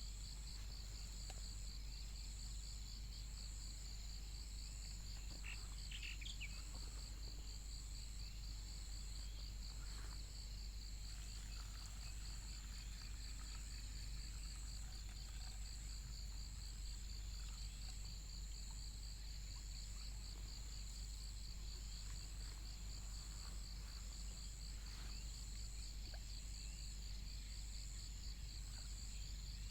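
Insects chirping steadily in chorus: a fast, even trill and a higher song that pulses in a slower rhythm, over a steady low rumble. A few faint short chirps come about six seconds in.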